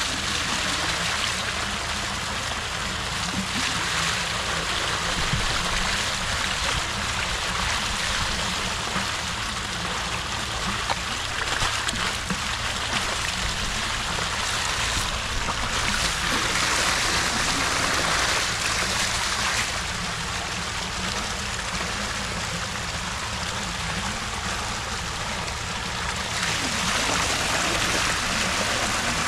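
Water gushing and splashing steadily out of a hole punched in lay-flat polyethylene irrigation pipe (polypipe), as a hose fitting is worked into the hole, over a low steady rumble.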